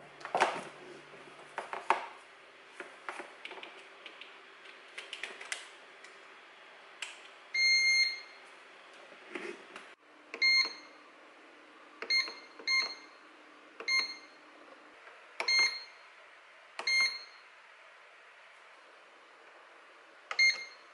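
Bread machine's control panel beeping as its buttons are pressed: one longer beep, then about seven short beeps of the same pitch a second or two apart. Before the beeps come a few clicks and knocks of handling.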